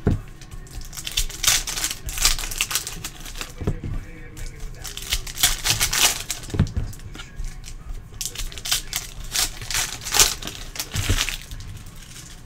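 Foil-and-cellophane wrapper of a Panini Prizm basketball card pack crinkling and tearing in the hands as it is opened, in a quick run of irregular crackles.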